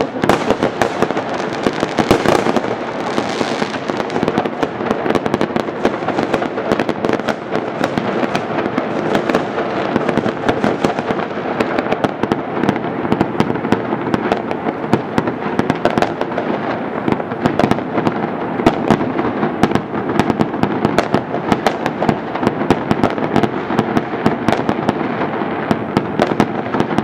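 Many fireworks and firecrackers going off at once, a dense, continuous crackle of pops and bangs with no pause.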